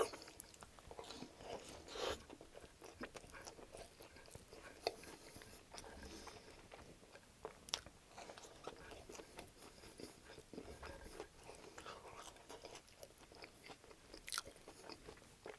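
Close-miked chewing and biting of a chicken ranch wrap made of a flour tortilla, lettuce and breaded chicken: faint, scattered small crunches and wet mouth clicks.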